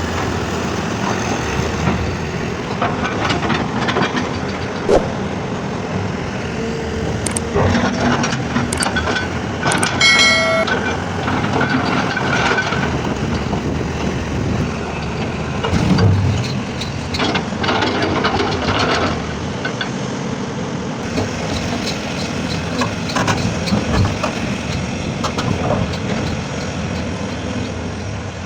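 Heavy diesel earthmoving machinery working rock, engines running under load with scattered clanks and knocks of steel on rock. A brief high tone sounds about ten seconds in.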